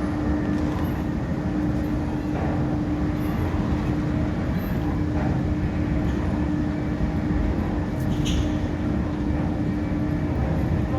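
Steady low mechanical rumble with a constant hum, and a brief clatter about eight seconds in.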